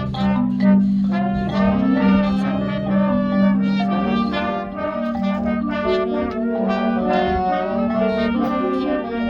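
High school marching band playing its field show: a brass-led passage with trumpets and trombones carrying changing notes over a long-held low note.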